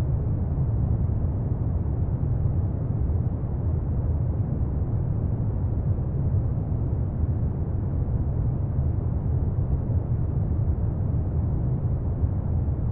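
Steady, deep brown noise: an even, unchanging hiss weighted heavily toward the low end, with no tune or instrument audible.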